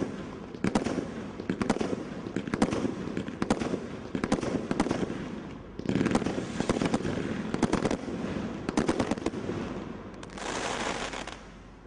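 Category 3 combination Roman candle firing: shots launching in quick succession, roughly one to two a second, with crackling star bursts. Near the end a dense crackling hiss, then the firing stops.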